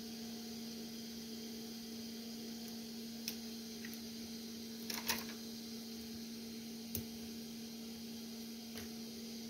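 Steady low electrical hum from bench equipment, with a few light clicks and taps of small parts being handled, one a double click about five seconds in.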